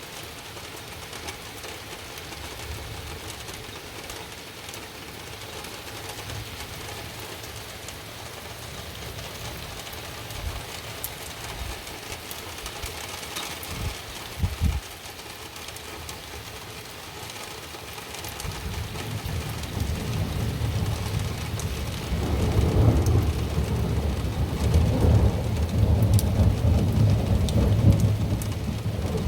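Steady rain hissing through a thunderstorm, with a couple of short low thumps midway. Then thunder rolls in, a deep rumble that builds over several seconds and is loudest near the end.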